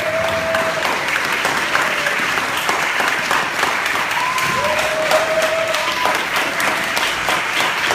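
Audience applauding steadily: many hands clapping at once at the end of a live song.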